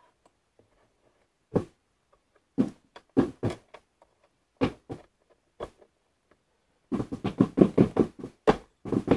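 Knocks on a tabletop as cardboard jigsaw puzzle pieces are set down and pressed into place: a few scattered taps, then a quick run of about five taps a second from about seven seconds in.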